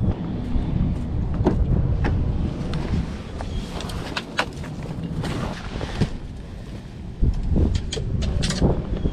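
A backpack and a fishing rod being handled at an open car door: scattered clicks, knocks and rustles, several sharper knocks in the second half, over a low wind rumble on the microphone.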